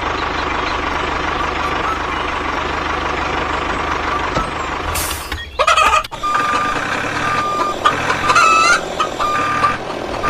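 A small vehicle's motor runs steadily. After a short break about halfway through, a series of reversing-style beeps sounds, with a crowing-like call in among them.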